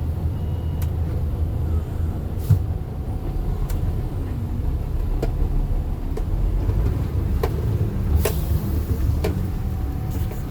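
A moving vehicle heard from inside the cab: steady low engine and road rumble, with scattered short knocks and rattles.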